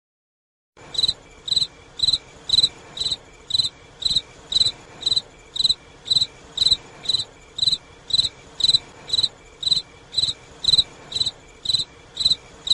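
Cricket chirping: short, even chirps at about two a second, starting abruptly out of dead silence just under a second in.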